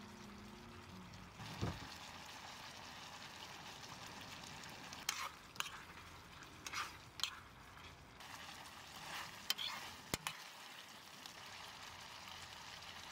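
Coconut curry cauliflower sizzling in a pan, a steady faint hiss, while a metal spoon stirs it, with several sharp clinks and scrapes of the spoon against the pan.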